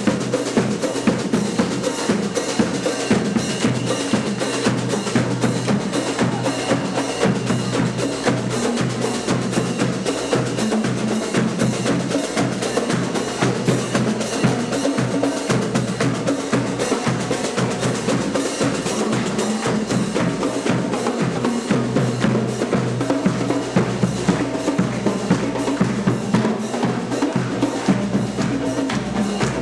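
A shawm band (Schalmeienorchester) playing: snare and bass drums beat a steady, busy rhythm under held notes of the shawms.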